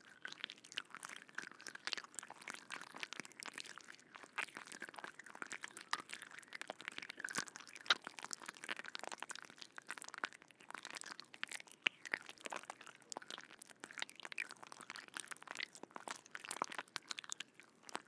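Close-miked insects: a dense, irregular crackle of tiny clicks and crunches, with a faint steady whine underneath in the first half.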